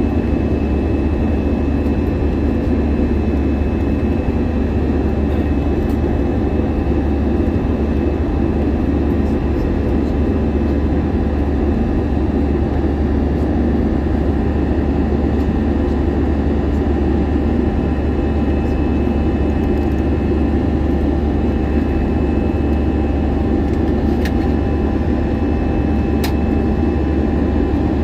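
Steady drone of an Airbus A321-200's jet engines and airflow heard inside the passenger cabin, with faint steady tones over it and two faint clicks near the end.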